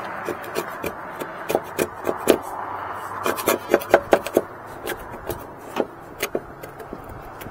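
Irregular clicks, taps and short scrapes of a flexible metal putty knife being worked by hand on old gasket and sealant residue, over a steady background hiss.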